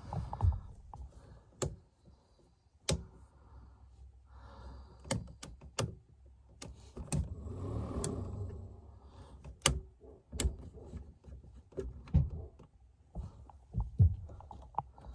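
Scattered sharp clicks and taps with soft rustling between them: a circuit test light's probe and fingers working among the plastic fuses and wires of a fuse block.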